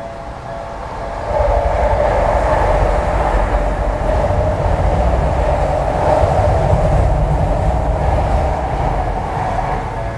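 A Tokyu Meguro Line electric train passes over a level crossing. From about a second in, its rumble and wheel noise grow loud and hold steady, easing near the end. At the start the level crossing's warning bell is ringing, then it is drowned out by the train.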